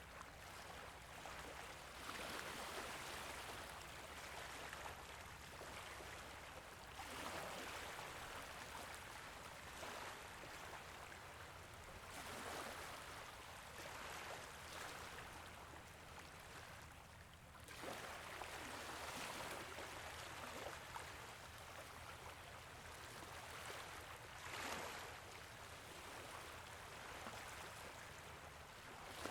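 Small waves gently lapping at a beach, a soft wash of water that swells and ebbs, with a new wave breaking roughly every five seconds.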